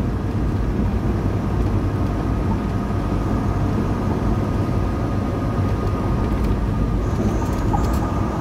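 Steady engine and road drone of a Volvo VNL860 semi truck cruising at road speed, heard from inside the cab, with a faint steady whine above it.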